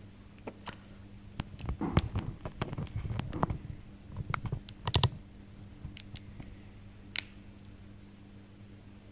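A toddler eating mashed food with his hands: a busy run of short wet smacks and clicks from his mouth and food-covered fingers as he chews, mostly in the first half, then a single sharp click about seven seconds in. A faint steady low hum sits underneath.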